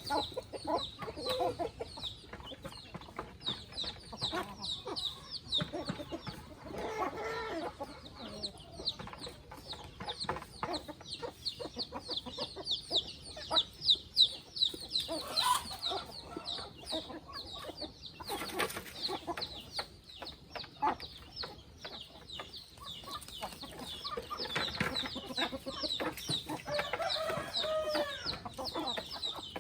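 A flock of free-range chickens clucking, with a fast, steady run of short, high, falling peeps and a few louder hen calls scattered through.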